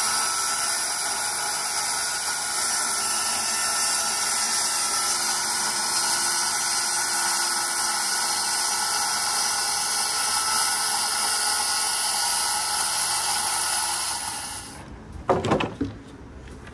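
Circular saw cutting through a melamine sheet: a steady cutting noise that stops about 15 seconds in, followed by a brief louder sound.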